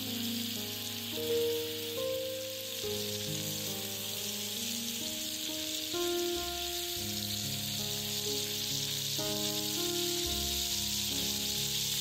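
Adana kebabs, minced meat on wooden skewers, sizzling steadily in oil on a non-stick griddle pan, with background music underneath.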